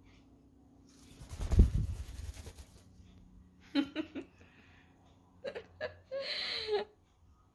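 Cockatiel's wings flapping as it flies down and lands on a person's head, with a loud thump close to the microphone about one and a half seconds in. After it, short bursts of a woman's laughter.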